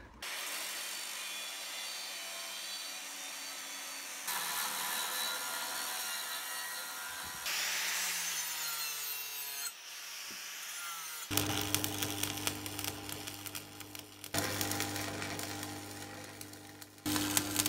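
An angle grinder cutting steel plate, in short edited passes, its motor pitch dropping briefly under load. Past the middle it gives way to a stick welder's arc crackling and sputtering over a steady low electrical hum.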